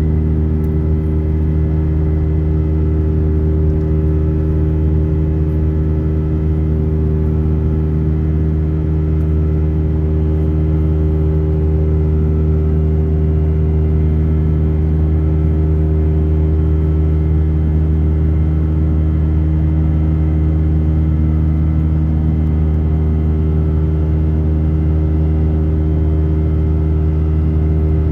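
Steady drone inside an Airbus A319 cabin from its twin jet engines and airflow, a constant low hum with several steady tones that neither rises nor falls.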